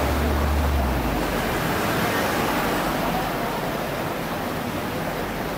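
Street traffic noise as a Hong Kong double-decker tram passes: a low rumble in the first second fades into a steady wash of traffic noise.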